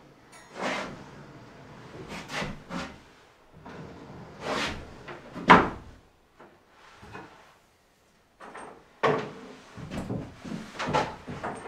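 Knocks, scrapes and clatters of a wooden kitchen cabinet and worktop being handled and shifted into place, with a sharp knock about five and a half seconds in, a brief near-silent pause, then a cluster of quick knocks.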